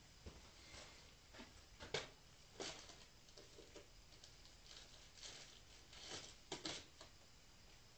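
Faint scattered knocks and clatters of a person moving about and handling things in a garage workshop, over quiet room noise; the loudest knocks come about two seconds in and again around six to seven seconds in.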